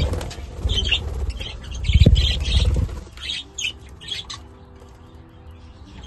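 Several budgies taking off and flying about, a flurry of wingbeats loudest about two seconds in, with short high budgie chirps throughout.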